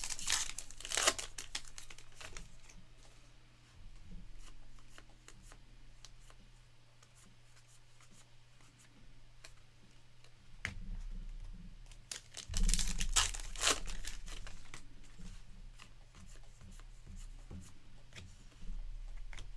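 Trading-card pack wrappers crinkling and tearing as packs are handled and opened, loudest at the start and again about twelve seconds in.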